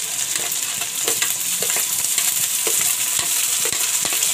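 Chopped onion and green chillies sizzling as they go into hot oil in a steel kadhai for a tadka, a steady hiss with scattered light clicks of steel against the pan.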